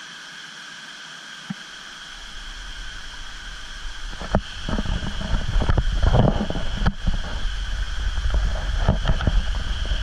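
Steady rush of shallow water cascading over travertine pools, with a constant high-pitched hum. From about two seconds in, low rumbling wind buffets the microphone, growing louder about halfway through, with knocks from the camera being handled on the move.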